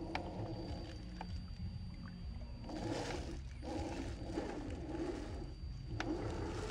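The electric brushed motor and gearbox of an MN86K 1:12 RC crawler whining in surges as it is throttled up a dirt slope, roughly one surge a second in the second half, over a faint steady high tone.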